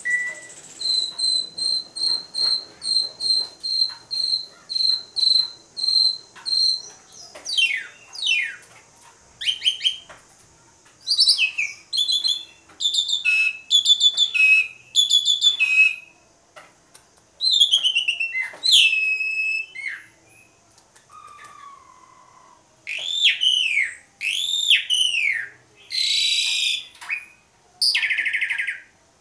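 Asian pied starling (jalak suren) in full song. It opens with a run of about a dozen identical clear whistled notes, roughly two a second, then breaks into a varied jumble of quick whistles and downward-sliding notes, with harsh rasping calls near the end.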